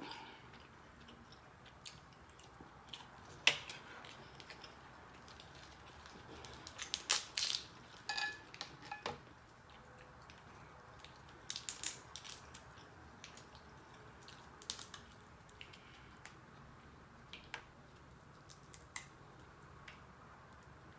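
Metal fork scraping and clicking against a plate and crab shell while picking out Dungeness crab meat: scattered sharp clicks, with a busier run about seven to nine seconds in.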